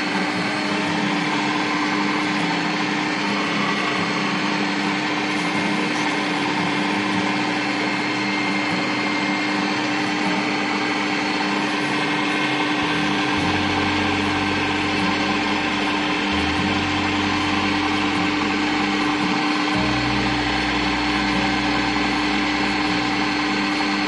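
Electric stand mixer running steadily at speed 4, its whisk beating egg whites in a metal bowl. A lower hum joins about halfway through.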